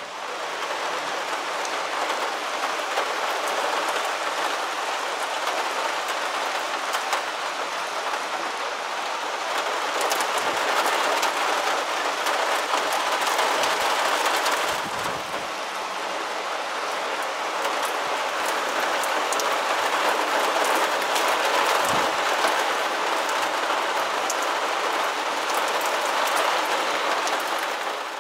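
Heavy downpour: a dense, steady hiss of rain with scattered sharp ticks. It eases a little about halfway through, then builds again.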